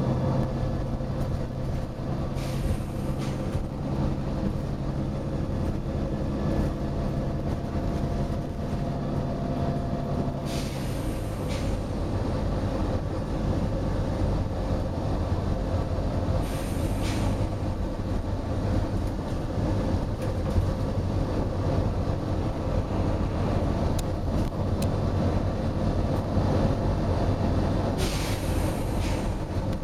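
Volvo B9TL bus running steadily, with four short compressed-air hisses from its air system. The engine's note drops a little after the second hiss.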